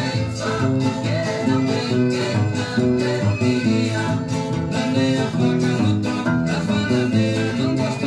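A 1993 Souto classical guitar (violão) of imbuia wood, fingerpicked: a quick run of single melody notes over moving bass notes.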